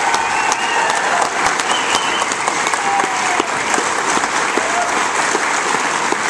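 Audience applauding steadily, dense clapping with a few voices through it.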